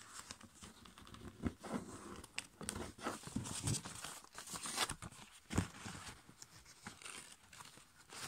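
A5 copy paper being folded and creased by hand: irregular crinkling and rustling as the folds are pressed, with a few sharper crackles, the loudest about five and a half seconds in.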